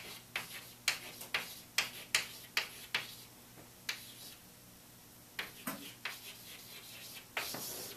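Chalk writing on a blackboard: a run of sharp, irregular taps and short scratches, about two a second, as letters are stroked out, with a brief lull a little past halfway.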